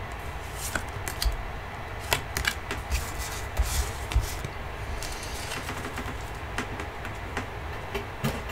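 Light, irregular clicks and taps of trading cards being handled and laid down on a desk playmat, with a few low bumps against the desk, busiest about two to four seconds in.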